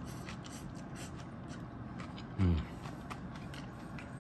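A man chewing a mouthful of fried rice and bean sprouts, with faint crunching. About two and a half seconds in comes a short hum ('mm') that falls in pitch, the loudest sound.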